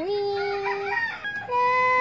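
A woman's voice singing in long, held, sing-song notes that step up and down in pitch, crooning to a pet cat. The longest held note starts about one and a half seconds in.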